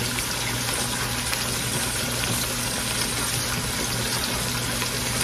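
Kitchen tap running steadily as hands are washed, over the sizzle of a floured beef chuck roast browning in hot oil in the pot.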